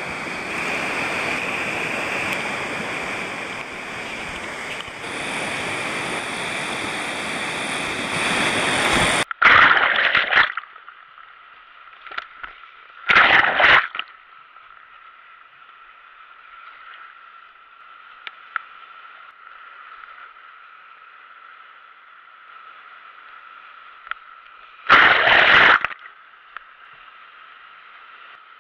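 River whitewater rushing loudly through a rapid, cut off suddenly about nine seconds in. After that the water sounds muffled and thin, as through a helmet camera's waterproof case going under and out of the water, with three short loud splashes.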